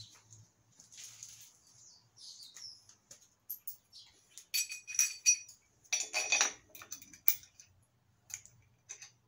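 Scattered light metallic clicks and clinks from a Harbor Freight 1,000-pound steel engine stand being handled at its mounting head and locking pin, with a few brief ringing chinks about halfway through and a heavier clink a second later.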